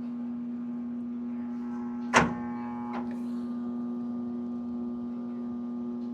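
Steady low electrical hum with a sharp click about two seconds in and a fainter click just under a second later.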